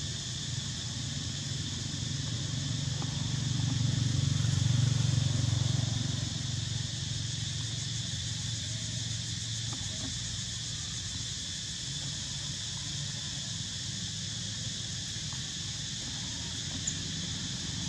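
Steady outdoor background: a constant high, even drone over a low rumble that swells between about four and six seconds in, with a single faint click near the end and no clear animal calls.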